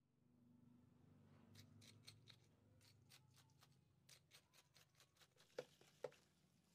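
Faint clicks and scrapes of a plastic spoon stirring crushed ice, tapioca pearls and mango in a plastic cup, with two louder clicks near the end, over a low room hum.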